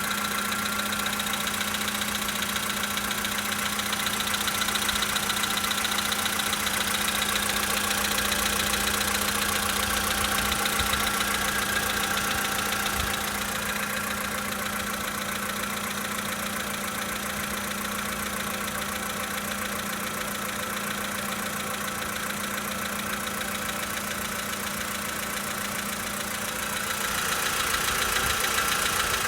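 Volkswagen Polo Sedan's 1.6-litre four-cylinder petrol engine idling cold, with a rapid knocking from inside the engine: the cold-engine knock that the owner is recording. The sound softens about halfway and picks up again near the end.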